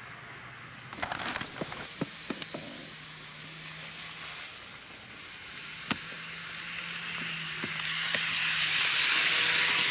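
N-gauge model of a Kintetsu 1252 series train running on its track: a steady motor hum and a hissing wheel-on-rail whir that grows louder as the train approaches, loudest near the end. A few sharp clicks come about a second in, and another near the middle.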